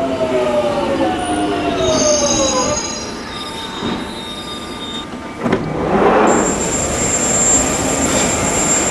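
A Jubilee line 1996 Stock train's drive whining down in a falling pitch as it brakes to a stop, with thin high squeals over it. After a sudden break, a single steady high-pitched whine comes from the standing train.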